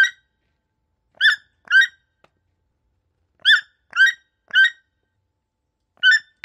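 An animal's short, squeaky calls, seven in all, each a brief pitched note, coming singly, in a pair and in a quick run of three.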